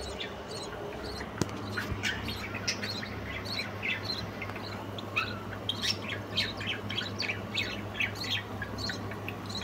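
Cage-bird chicks giving rapid, high, squeaky begging chirps, several a second, as the father bird feeds them in the nest box. A steady low hum runs underneath from about a second and a half in.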